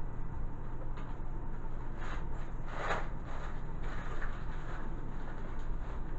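Rustling of a plastic bread wrapper being handled, with a short burst of rustling about two to three seconds in, over a steady low hum.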